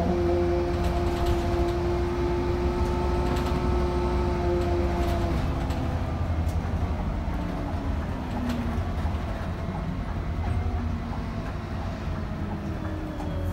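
City bus driving, heard from the front of the cabin: a low engine and drivetrain drone with a steady whine and light rattles and clicks. Near the end the whine falls in pitch as the bus slows.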